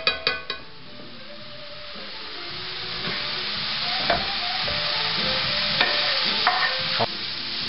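Minced garlic sizzling in oil in a nonstick frying pan, the sizzle building over the first few seconds. Cubed steamed sweet potatoes go into the pan and are stirred with a spatula, with a few taps and knocks of the spatula against the pan.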